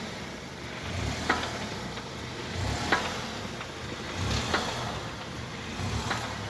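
Front suspension of a Skoda Kodiaq knocking as the car body is rocked: four sharp knocks, each with a low thud, evenly spaced about a second and a half apart in time with the rocking.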